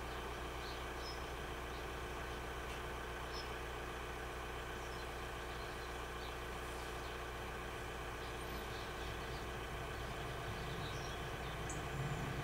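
Car engine idling steadily, heard from inside the car, with a few faint bird chirps. Near the end a low rumble builds as an approaching train nears the level crossing.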